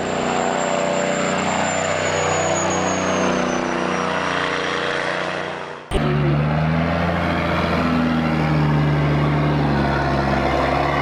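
Heavy vehicle engines running steadily under load, in two clips: the sound cuts abruptly to a louder, deeper-pitched engine about six seconds in.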